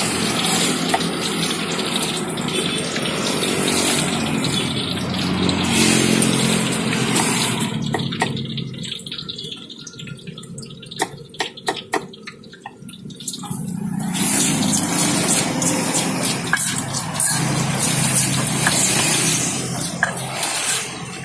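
Hot oil sizzling steadily in a wok as tofu and a fritter deep-fry. Midway it goes quieter for a few seconds, and a run of sharp knife taps on a wooden cutting board comes through.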